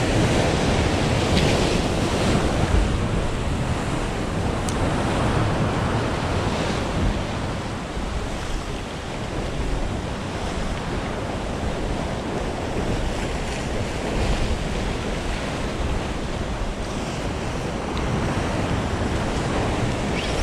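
Ocean swell surging and breaking against a sandstone rock ledge, a steady wash of surf, with wind buffeting the microphone.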